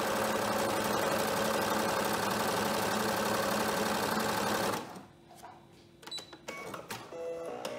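Brother Innovis 900D computerised sewing machine running steadily, stitching through fabric, working again after a hard jam was cured by cleaning out built-up lint. It stops abruptly about five seconds in, followed by a few light clicks and short tones as its buttons are pressed.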